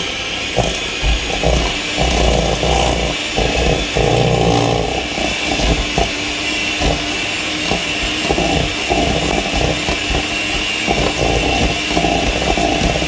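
Electric hand mixer running at a steady speed, its motor whining evenly, while the beaters rattle and scrape irregularly against a stainless steel bowl as they cream softened butter and caster sugar.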